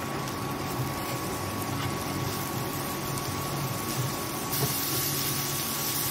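Chopped onions and green chillies sizzling steadily in butter and oil on a hot tava while a wooden spatula stirs them, the frying cooking the onions soft; the sizzle grows a little brighter about four and a half seconds in. A steady hum with a thin whine sits underneath.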